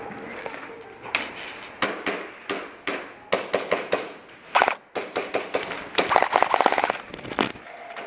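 Airsoft guns firing: a string of separate sharp shots and BB cracks, then about six seconds in a short rapid full-auto burst from an electric airsoft rifle (AEG).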